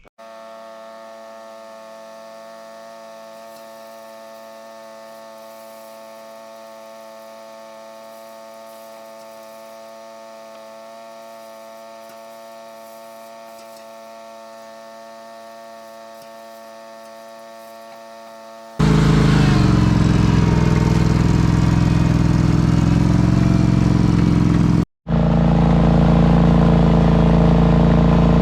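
A machine engine hums steadily at an even pitch. About two-thirds of the way in, the sound cuts suddenly to a much louder, close heavy-equipment engine running. There is a brief dropout a few seconds later, then the loud engine carries on.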